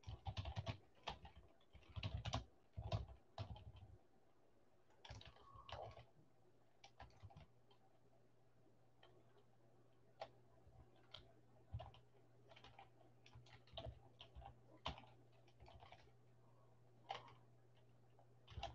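Typing on a computer keyboard: quick runs of keystrokes for the first few seconds, then scattered single taps with pauses between them.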